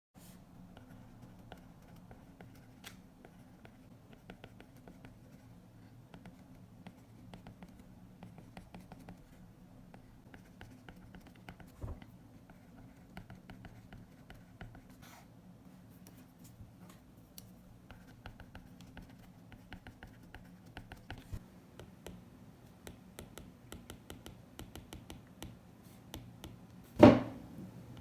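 A stylus writing and tapping on an iPad screen: a run of light, irregular ticks and scratches over a faint steady hum, with one louder knock near the end.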